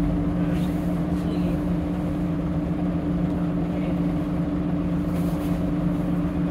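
Scania DC9 9.3-litre inline-five diesel engine of a double-decker bus idling steadily, a constant low hum with an even rumble and no revving.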